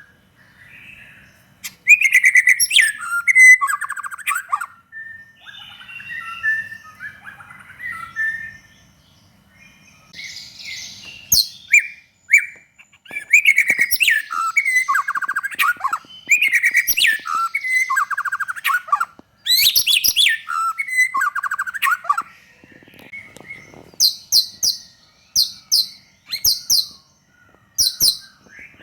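White-rumped shama singing a loud, varied song of whistled phrases and rapid trills, with short pauses between phrases. Near the end comes a run of short, high repeated notes.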